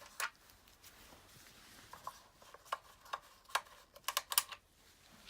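Irregular light metal clicks and taps as the motorcycle headlight's two mounting bolts are taken off and handled, with a quick cluster of clicks near the end.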